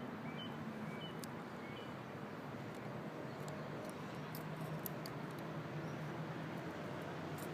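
Quiet outdoor background: a steady low hum with a few short, faint, high squeaky chirps in the first couple of seconds and scattered faint ticks.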